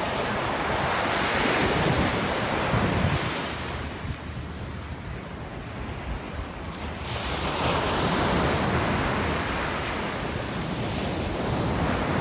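Ocean surf breaking and washing up a sandy beach: a loud rush of waves for the first few seconds, easing off in the middle, then building again as the next wave comes in.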